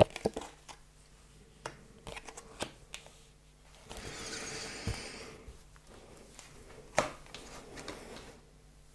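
Oracle cards being shuffled and laid down on a cloth-covered table: soft clicks and taps, a stretch of card rustling about four seconds in, and a sharper tap about seven seconds in.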